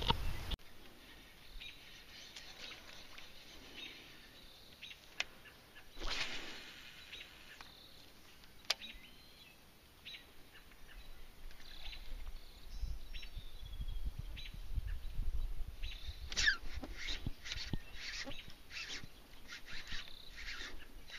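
Small birds chirping on and off, the chirps coming thicker and faster over the last few seconds.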